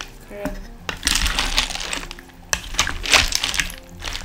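Wooden spatula stirring pig trotters and snails in a metal pressure cooker pot: a few sharp knocks of the spatula against the pot and two longer scraping, stirring stretches.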